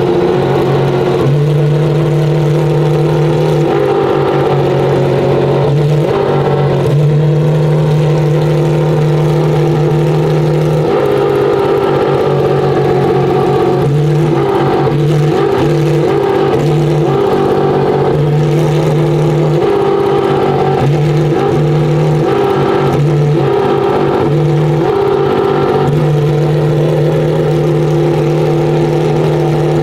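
Pagani Huayra R's naturally aspirated V12 running loudly at a fairly steady pitch, with small shifts in engine speed every few seconds.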